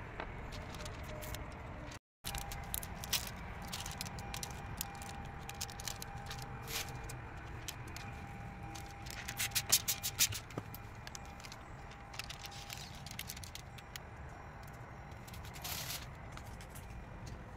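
Squeegee and hard card tool scraping over wet window tint film on a truck's side window, with scattered clicks and crackles. A quick run of sharp clicks about ten seconds in is the loudest part, and the sound drops out briefly about two seconds in.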